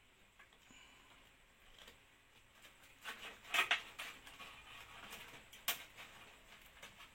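Light clicks and rustling of cables and plastic connectors being handled inside a computer case, with a cluster of sharper clicks about three and a half seconds in and one more sharp click near six seconds.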